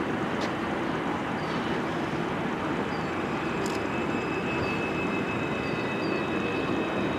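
Electric trams at a station: a steady running hum, joined about three seconds in by a thin high steady whine.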